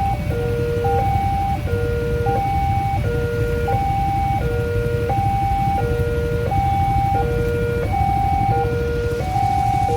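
Electronic railway level-crossing warning alarm repeating a short pattern of steady tones about every second and a half, over a loud low rumble.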